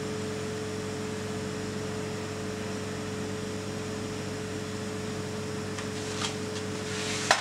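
Steady hum of commercial kitchen machinery, with a constant mid-pitched tone over a low drone. The tone cuts off with a click just before the end.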